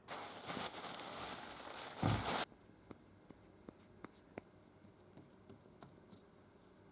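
Beverly throatless shear cutting sheet metal: a grinding, crinkling cut for about two seconds that ends in a heavier clunk as the cut finishes, then a few light clicks of the metal and handle.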